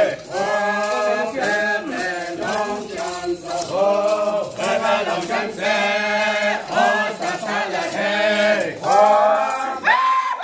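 A group of men's and women's voices chanting a traditional song together in short repeated phrases, with a steady low note held beneath it.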